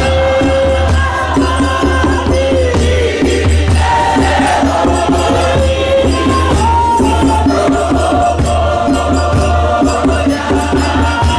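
A group of church singers singing a hymn together, many voices holding and sliding between long notes, to a steady rhythmic beat, over a low steady hum.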